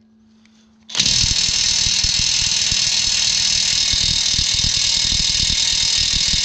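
DeWalt half-inch cordless impact wrench, with a 3/4-inch impact socket on a 41 mm nut, starting about a second in and hammering loud and without a break. The nut does not move: it is still factory-tight and too much for the impact gun.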